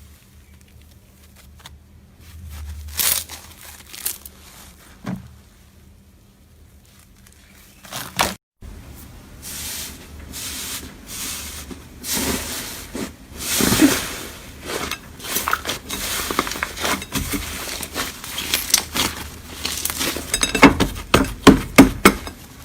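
Slime being squeezed and stretched by hand, making quick sticky clicks and pops. The clicks are sparse at first, then come thick and louder after a short break about eight seconds in, with the sharpest pops near the end.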